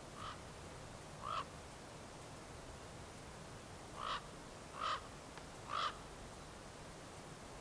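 Five short animal calls: two in the first second and a half, then three more about a second apart from about four seconds in.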